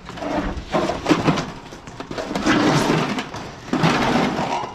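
Heavy air conditioner unit being heaved and shoved onto a pickup truck's tailgate: scraping and knocking in three bursts.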